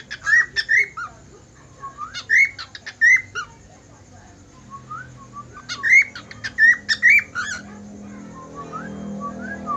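Cockatiel whistling: quick phrases of short sliding notes in three bursts with brief pauses between, and only a few faint notes near the end.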